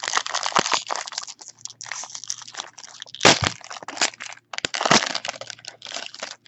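Foil wrappers of baseball card packs crinkling and crackling as the packs are torn open, with two sharper, louder crackles about three and five seconds in.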